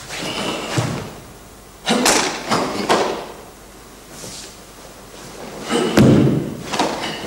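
Bare feet stepping and stamping on a wooden floor, with the cotton karate uniform snapping on sharp strikes and blocks, in short bursts near the start, around two to three seconds in, and again about six seconds in.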